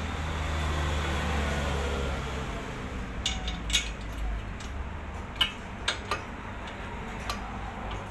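Metal clinks and knocks as a brake caliper with new pads is worked back over the disc rotor: a handful of sharp taps in the second half. A low hum runs through the first couple of seconds and then fades.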